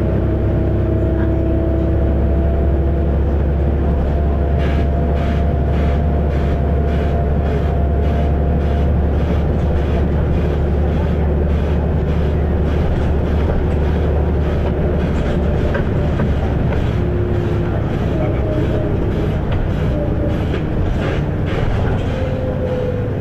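Volvo B7RLE bus's six-cylinder diesel engine running under way, a steady low drone with a held drivetrain whine. A run of short clicks and rattles sets in about five seconds in and carries on to near the end.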